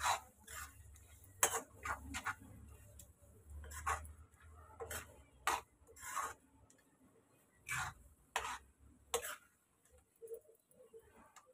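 Metal spatula scraping and clinking against a wok while stirring and frying soft pieces of goat brain: short, irregular scrapes and clicks, a dozen or so, over a faint low hum that stops near the end.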